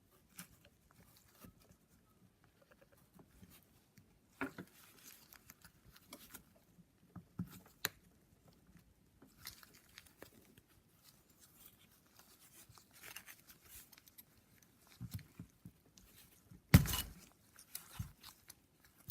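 Scattered light clicks, scrapes and rustles of hands handling pistons and piston rings on a workbench, with one sharper knock near the end.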